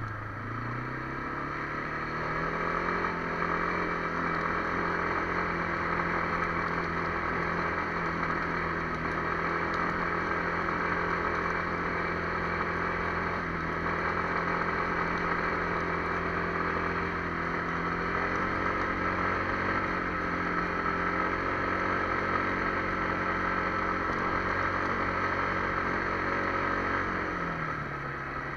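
Kymco MXU 300 ATV's single-cylinder engine running at a steady speed on the move. Its pitch dips and comes back up just after the start, and drops again near the end as the throttle eases off.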